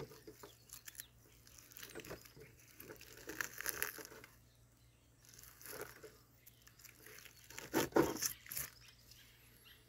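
Slow-grilled beef rib being pulled apart by hand and its bones taken out: scattered short scraping and tearing noises, loudest about eight seconds in.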